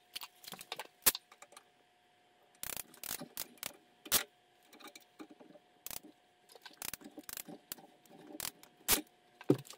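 Ratcheting PEX crimp tool working crimp rings onto 1-inch PEX fittings: a run of irregular sharp metal clicks and knocks, the loudest about four seconds in and again near the end.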